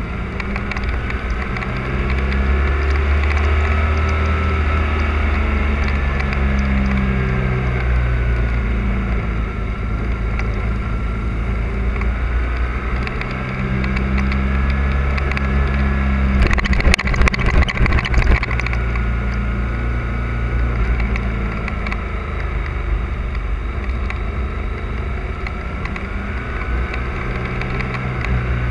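Motorcycle engine running under way, its pitch rising and falling through the bends. About halfway in there are a couple of seconds of rough crackling on the microphone.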